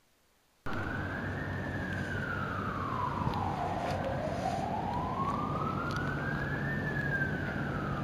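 Wailing police siren cutting in abruptly under a second in, then sweeping slowly up and down in pitch, about five seconds per rise and fall.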